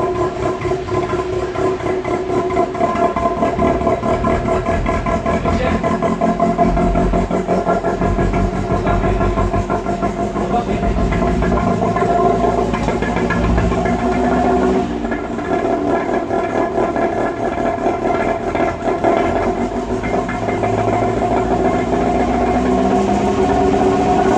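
Old sedan's engine running steadily at idle, loud and even.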